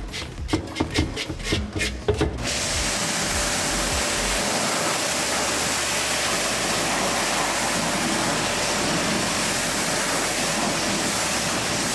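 Pressure-washer spray hissing steadily as it blasts dirt off a car's rusty steel wheel and whitewall tyre. The hiss starts about two seconds in and holds at an even level.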